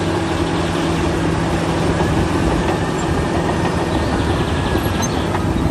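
A bulldozer's diesel engine running steadily: a continuous low drone with a constant hum.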